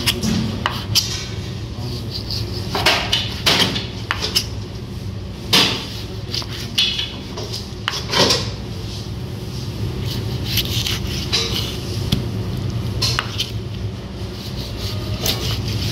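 Kitchen handling noises: scattered clanks, knocks and clinks of pans, utensils and dishes being moved and set down, the loudest about five and a half seconds in, over a steady low hum.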